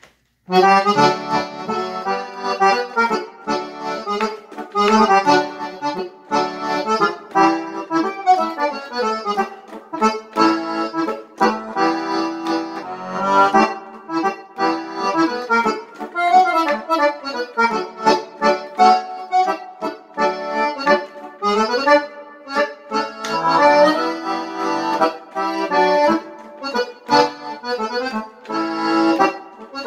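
Reedless digital Universal concertina playing a Dutchman-style tune, its synthesized concertina voice sounding from a loudspeaker, melody and chords together. It starts about half a second in and runs on with brief breaks about a third and two thirds of the way through.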